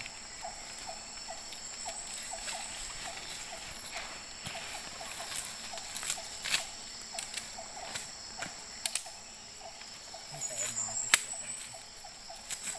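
Steady high insect drone with a small animal's short chirp repeating about twice a second, and a few sharp clicks from fish and net being handled on the pebbles, the loudest about eleven seconds in.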